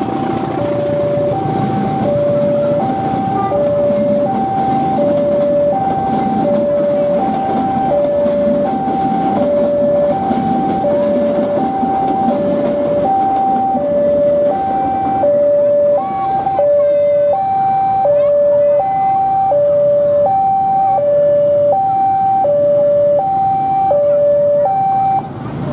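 Railway level-crossing warning alarm sounding an electronic two-tone high-low chime, one high-low cycle about every one and a half seconds, over the rumble of train carriages rolling past. The chime stops near the end.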